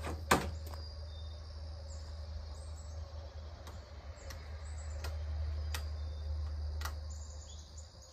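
Insects chirring steadily over a low rumble, with a handful of sharp handling clicks and knocks. The loudest click comes about a third of a second in.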